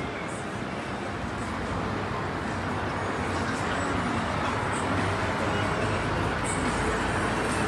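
Road traffic noise: a steady hum of passing vehicles that grows a little louder from about halfway through.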